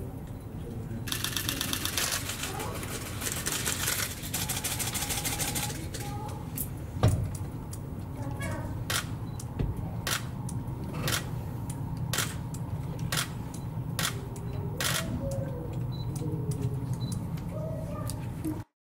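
A train passing over rail joints, its wheels clicking in pairs about once a second over a steady low rumble. Before that, a camera shutter fires in a rapid burst for several seconds.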